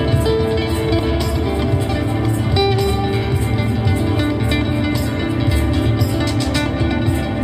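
Live acoustic band music led by plucked guitar, over a full, steady low end.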